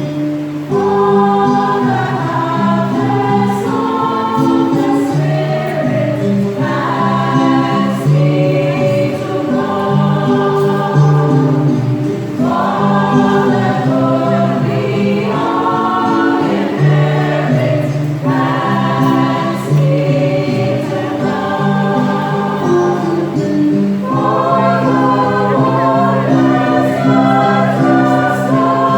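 Church choir singing a gospel hymn in phrases of a few seconds each, over sustained low instrumental notes.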